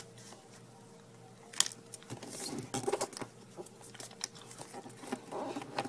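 Origami paper rustling and crinkling under the fingers as a flap is squash-folded and pressed flat. A sharp tap comes after a quiet second and a half, then irregular rustling with small clicks.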